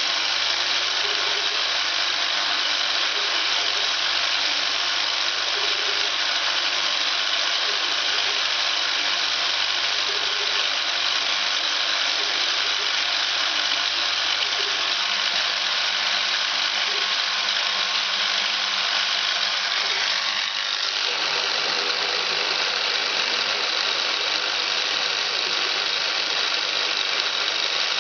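A Hobbymat BFE65 bench milling machine, converted to CNC, running a milling test: steady motor and cutting noise. About twenty seconds in, the noise changes in tone.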